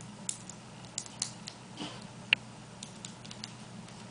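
Scattered light clicks and taps of small metal parts being handled: a screw being set into a detachable clipper blade and a screwdriver brought to it, with one sharper click a little past two seconds in.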